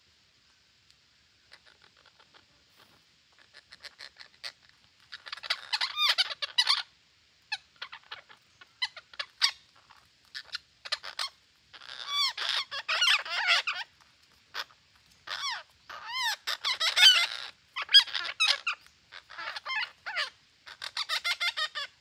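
A flock of green parakeets squawking and chattering in repeated harsh, bubbling bursts of several overlapping calls, sparse at first and coming thick and fast from about five seconds in.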